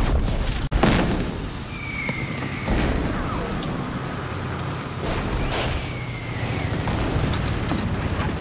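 Battle sound effects: heavy explosions at the start, just under a second in and again about halfway through, over a steady low rumble of vehicle engines and combat din. Two short high whistles cut through, one about two seconds in and one near six seconds.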